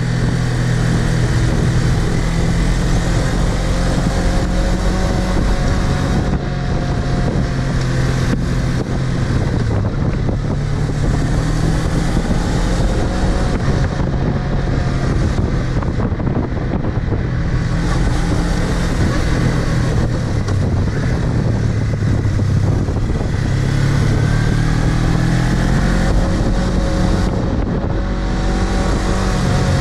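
Suzuki V-Strom 250's parallel-twin engine running under way on a dirt track, its pitch rising and falling with the throttle, with wind noise on the microphone.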